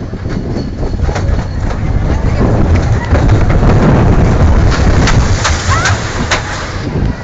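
Big Thunder Mountain Railroad mine-train roller coaster cars rumbling and clattering along the track. A run of sharp clacks and a brief rising squeal come in the later seconds.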